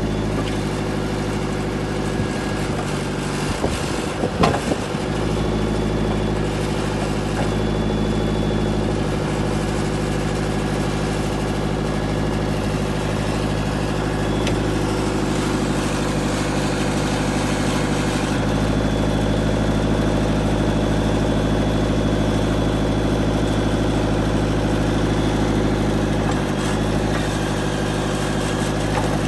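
Benmal 308R wheeled excavator's diesel engine running steadily, with a few knocks and clatters about four seconds in.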